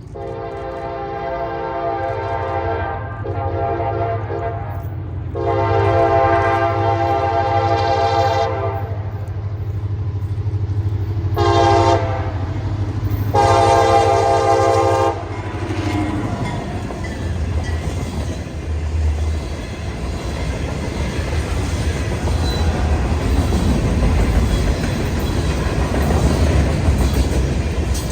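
Diesel freight locomotive horn sounding a chord in the grade-crossing pattern, long, long, short, long, over the low rumble of the approaching CSX train. After the last blast, about halfway through, the locomotives and cars rumble past.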